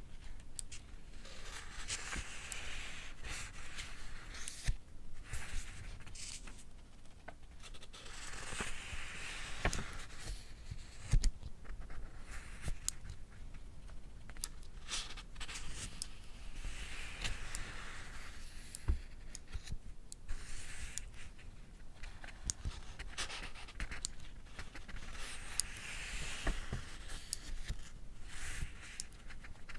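Pages of a paperback book being turned, soft paper rustles every several seconds, with sharp clicks of a mechanical pencil's lead being pushed out in between.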